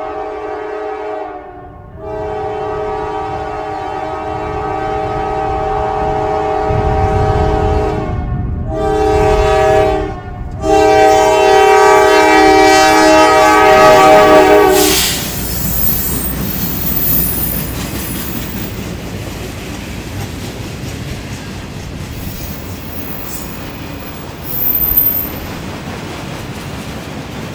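Norfolk Southern diesel freight locomotive's air horn blowing the grade-crossing pattern of long blasts with a short one before the last, over the low rumble of the locomotives working hard up a grade. The horn stops about fifteen seconds in, leaving the steady rumble and wheel clatter of the freight cars rolling by, with a brief louder swell near the end.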